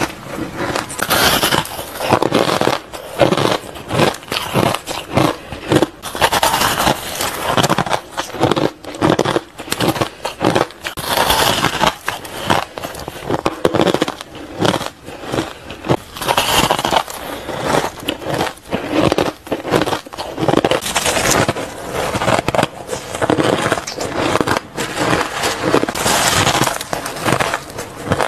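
Shaved ice crunching and crackling in the mouth, close-miked: bite after bite with sharp crisp clicks as the ice is chewed.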